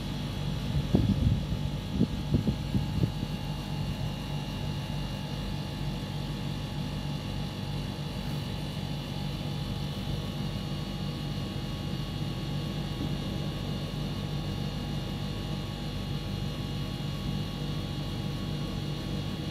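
A steady mechanical hum with a faint high whine over it, with a few short knocks in the first three seconds.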